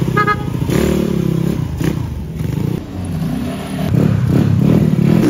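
Small motor scooter engines revving, their pitch rising and falling as the riders open and close the throttle.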